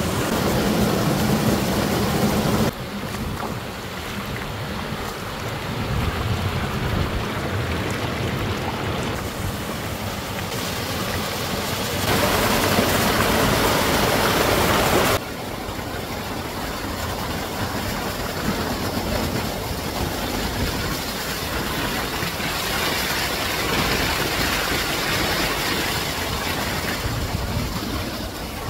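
Small waterfalls on a rocky stream pouring into a pool: a steady rush of falling water. It jumps abruptly louder or quieter several times and is loudest for a few seconds past the middle.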